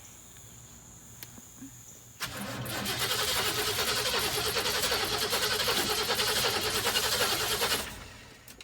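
The 1976 GMC Motorhome's Oldsmobile 455 V8 cranking on the starter for about six seconds with a steady pulsing rhythm, then stopping without settling into an idle. Freshly fitted fuel pump and lines are still drawing fuel up, with the fuel filter not yet full.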